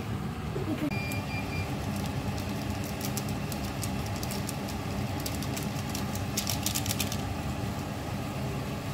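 Liquid boiling hard in a pan on a gas stove burner: a steady low rumble, with a cluster of crackles about six and a half seconds in and a brief faint high beep about a second in.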